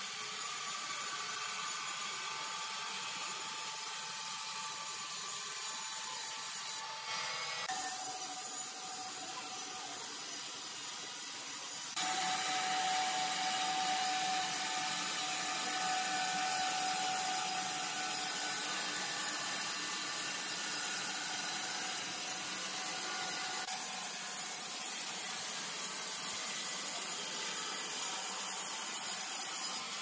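Horizontal band sawmill blade cutting lengthwise through a large log, a steady sawing noise, with an abrupt step up in level about twelve seconds in.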